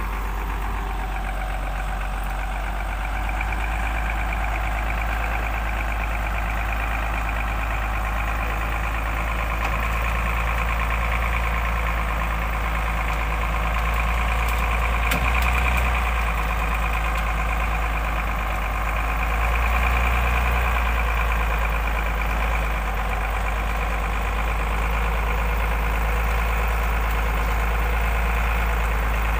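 A Hyundai logging truck's diesel engine running steadily with a deep hum, swelling slightly twice partway through, as the truck works to winch itself up a muddy slope.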